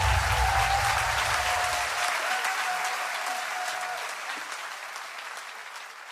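A large audience applauding, the clapping fading out gradually.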